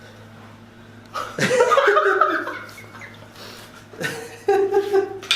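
A person laughing without words in reaction to a chiropractic adjustment, in two bursts: one starting about a second in, the other about four seconds in.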